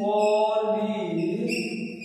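A man's voice slowly drawing out the syllables of 'it is polynomial' in a long, sing-song, chant-like way.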